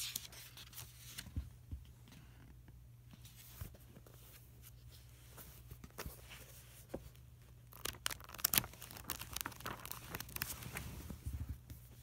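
Paper pages of a handwritten journal being flipped and rustled by hand: scattered soft crinkles and clicks, busiest in the last few seconds.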